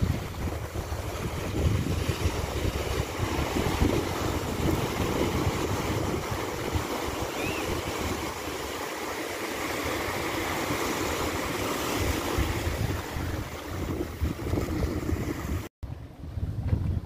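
Ocean surf washing over rocks and into tide pools, with wind buffeting the microphone. Near the end the sound drops out for a moment and returns quieter.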